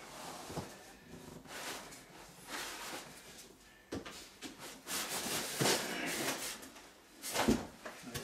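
A large cardboard TV box and its packing scraping, rustling and bumping as the 60-inch TV is wrestled out of it by hand, with a sharp knock about four seconds in and a heavier thump near the end.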